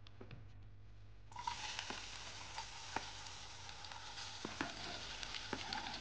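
Chopped onion hitting hot oil in a frying pan: a sudden sizzle starts about a second in and carries on steadily, with small crackles and clicks.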